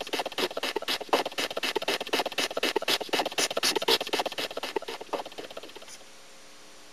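Audience applause, many hands clapping densely and unevenly, fading out about five to six seconds in and leaving a steady hiss with a faint hum from the old videotape recording.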